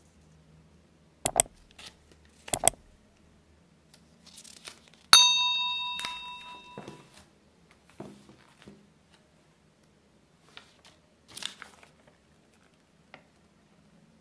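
Paper leaflet being handled and unfolded: crinkling and rustling with a few sharp snaps of the paper in the first few seconds. About five seconds in, a single bright ding rings out and fades over about a second and a half; it is the loudest sound.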